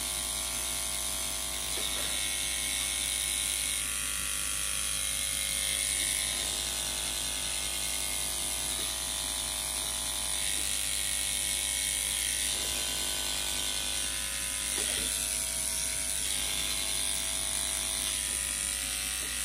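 Cordless electric pet clipper running with a steady hum as it trims the fur on a toy poodle puppy's foot.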